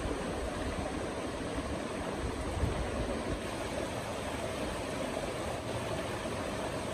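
Shallow, fast-flowing river rushing over rocks: a steady, even rush of water.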